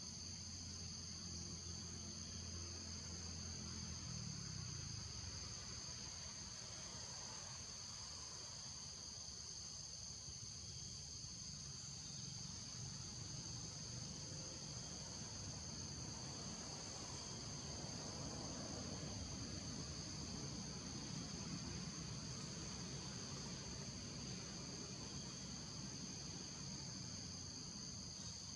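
Steady, high-pitched chorus of insects, holding two even tones throughout, with a low background rumble underneath.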